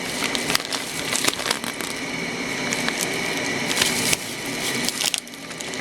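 Plastic and paper packaging crinkling and rustling in handling, a dense run of irregular crackles.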